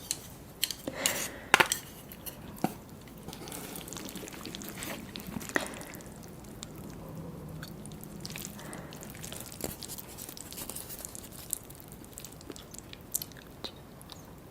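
Close-up eating sounds: chewing a mouthful of cheesy instant noodles with tobiko. A few sharp clicks of utensils against the bowl come in the first two seconds, then scattered soft clicks.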